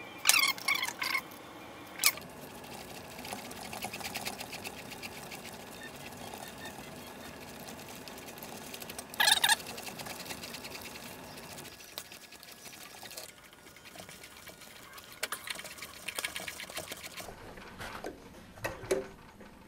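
Hand work on a steel bolt held in a mini-lathe chuck, tapping and threading its end. There are a few sharp metal clinks, and a faint, fast, even ticking runs through the middle.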